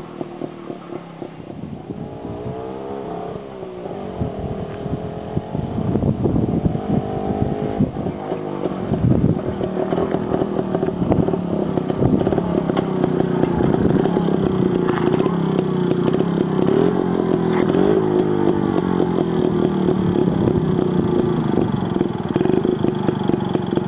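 ČZ 150 motorcycle's two-stroke single-cylinder engine running, its revs rising and falling as it draws nearer and gets louder, then settling into a steady, even run.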